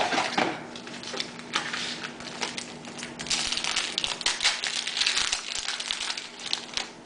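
Trading-card pack wrapper crinkling and tearing as it is opened, with the cards handled: a dense run of small crackles and clicks, busiest in the second half.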